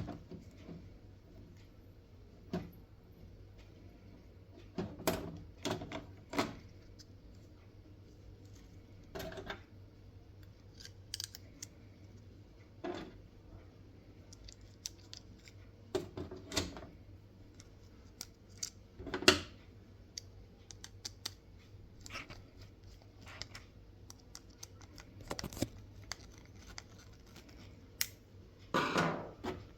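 Scattered short clicks and light knocks of small hard parts being handled, about a dozen spread irregularly, the sharpest about two-thirds of the way in, over a faint steady hum.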